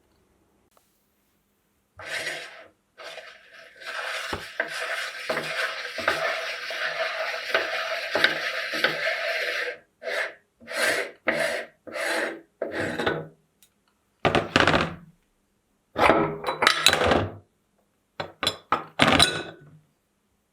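Meat grinder working with metal clattering and grinding: one run of about six seconds, then a string of short bursts broken by sudden silences.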